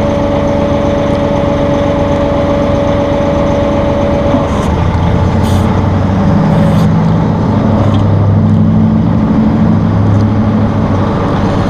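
Massey Ferguson 1742 compact tractor's diesel engine running while its hydraulics work the CB75 backhoe into position. A steady high whine holds until about four seconds in, then stops, and the engine note drops lower and wavers.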